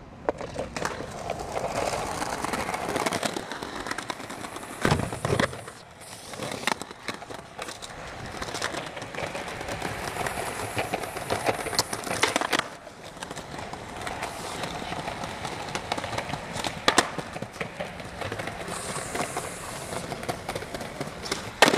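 Skateboard wheels rolling over concrete pavement through a street line, with several sharp clacks of the board popping and landing.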